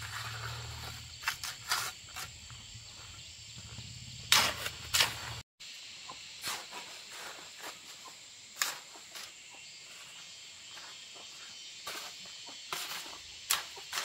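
Steady high-pitched drone of insects, with scattered sharp knocks and scrapes, two louder ones about four and a half and five seconds in. A low hum underneath stops at a brief dropout about five and a half seconds in.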